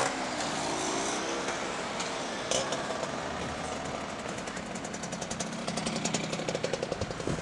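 A vintage scooter's two-stroke engine passing close at low speed, its exhaust puttering in fast, even pulses that build up in the second half, over the steady noise of cars rolling by.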